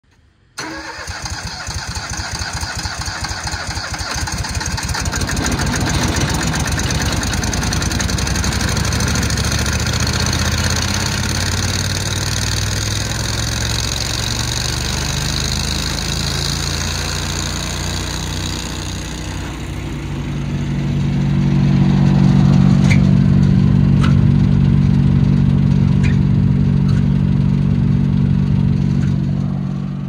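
The gasoline engine of a 2019 Morbark Boxer X7 tow-behind wood chipper starts under a second in and runs. About twenty seconds in it comes up to a louder, steadier, deeper run, then eases off just before the end.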